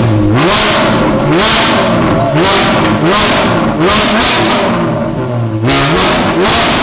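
Porsche 718 GT4's flat-six revved repeatedly through a Dundon Motorsports Cracked Pretzel Inconel exhaust: several sharp blips, roughly one a second, each rising in pitch and dropping back, echoing loudly inside the shop.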